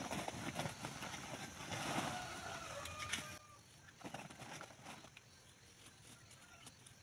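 Chickens clucking, short calls over scattered knocks and background noise. The sound drops sharply to a quieter level about halfway through.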